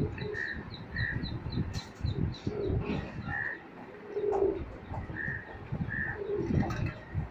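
Domestic pigeons cooing several times, with short, high bird chirps repeating between the coos.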